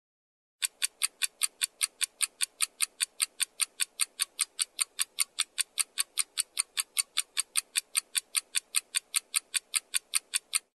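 Countdown timer sound effect: a clock ticking fast and evenly, about five crisp ticks a second. It starts half a second in and cuts off abruptly near the end.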